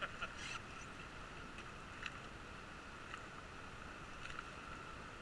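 River water washing and lapping around an oar raft as it drifts downstream, a steady faint rush with a few short splashes from the oar blades.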